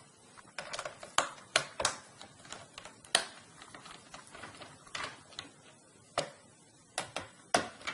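Irregular light clicks and taps of a laptop's plastic RAM compartment cover being set in place and screwed down with a Phillips screwdriver.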